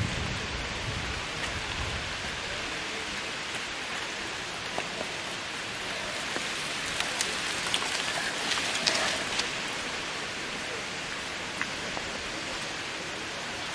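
Steady hiss with scattered crackles and ticks, thickest a little past the middle: mountain-bike tyres rolling over loose gravel on a dirt trail.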